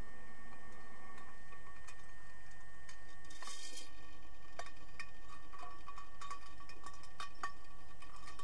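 Underwater sound of a pool during an underwater hockey game: a steady hum made of several thin tones, with irregular sharp clicks and knocks throughout. A short hiss comes a little over three seconds in.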